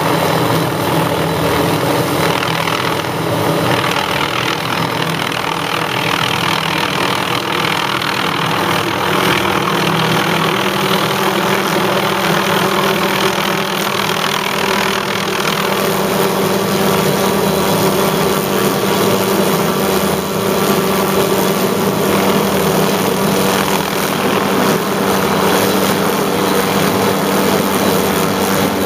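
Hughes 500 helicopter's turbine engine and rotor running steadily under load as it pulls hard line.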